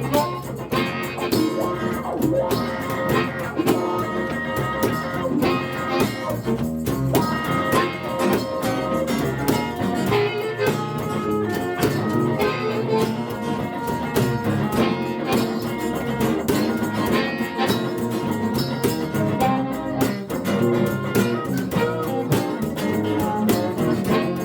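Live blues band playing an instrumental break, with guitar prominent and a steady rhythm.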